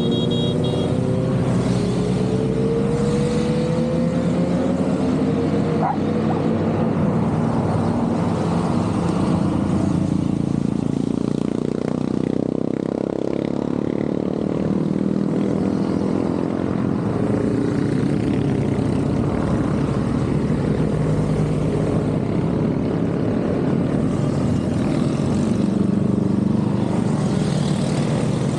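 A continuous procession of motorcycles riding past, many engines running together in a steady drone. Individual bikes' engine notes rise and fall as they go by near the start.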